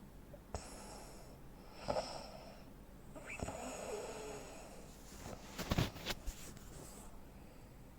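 Heavy snoring of a man with sleep apnea: a snort about two seconds in, a longer rasping snore, then a loud burst of rattling snorts about six seconds in, followed by quiet.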